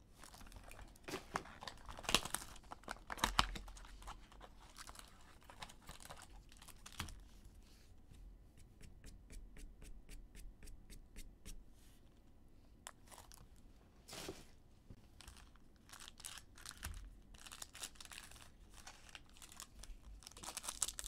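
Trading-card packaging being handled: a cardboard box and plastic wrap rustling, and a foil card pack being torn open, with scattered crinkles and sharp clicks. In the middle comes a short run of quick, even light ticks.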